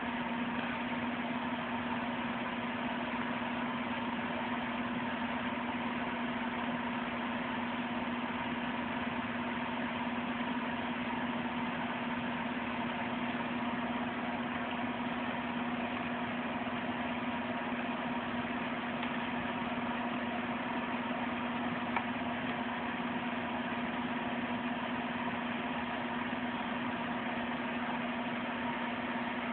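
A steady mechanical hum with a low tone over a hiss, unchanging throughout, and one faint click about 22 seconds in.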